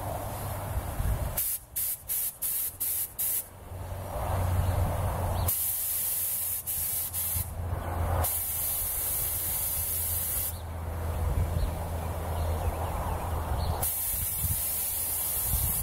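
Air-fed paint spray gun hissing as its trigger is pulled to test the spray pattern: a quick run of about six short blasts, then long sprays of a few seconds each with pauses between.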